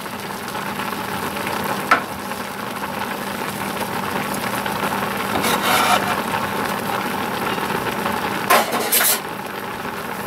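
Thick milk-and-cornstarch sauce simmering and sizzling in a cast-iron skillet, with a few short scrapes and taps of a wooden spoon against the pan, two of them close together near the end.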